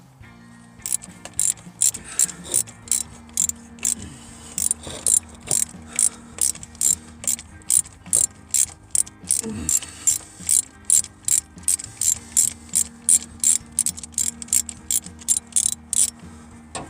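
Socket ratchet wrench on an extension clicking steadily, about three clicks a second, as a spark plug is worked out of the engine. The clicking stops near the end.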